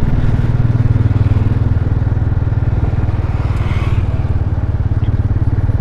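Motorcycle engine running steadily at an even speed, a close, continuous drone with a rapid even pulse.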